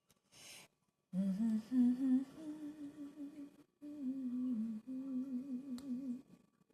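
A person humming a wandering tune in two phrases, the second after a short breath. A brief rustle comes just before the humming and a faint click near the end.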